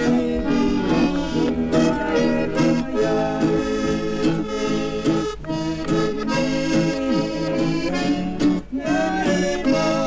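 Zulu street musicians playing a lively tune, with several held notes sounding together as chords.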